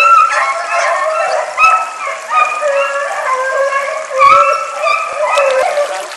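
A pack of rabbit hounds baying together, many voices in overlapping drawn-out notes. There is a low thump about four seconds in.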